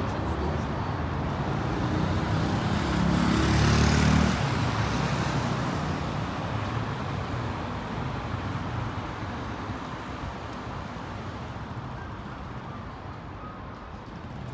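City street traffic: a motor vehicle passes close by, loudest about four seconds in, then the road noise slowly fades.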